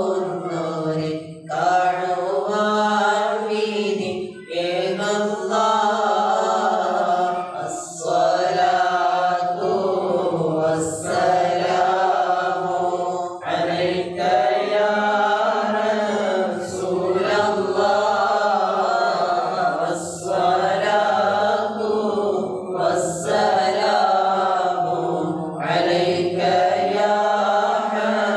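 Men chanting a mawlid recitation, a lead voice amplified through a microphone. The singing comes in melodic phrases a few seconds long, with short breath pauses between them.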